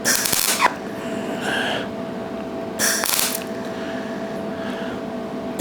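Welding arc crackling in short bursts as the ends of stainless steel wire are tacked together, one at the start and another about three seconds in with a fainter one between, over a steady hum.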